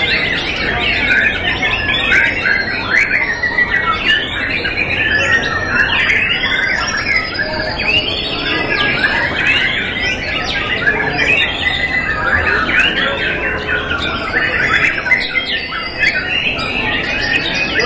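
Several young white-rumped shamas (murai batu) singing against each other in contest cages. Many short, overlapping whistled and chattering phrases pour out without a break.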